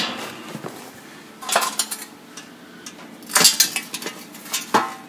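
A welded sheet-steel door pocket clanking and scraping on a concrete floor as it is handled and picked up: three short metallic clatters, the loudest about halfway through.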